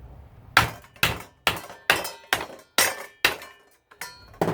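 A hammer striking metal in a steady run of about seven sharp blows, roughly two a second, each with a short ring, as the garbage disposal is knocked apart for scrap.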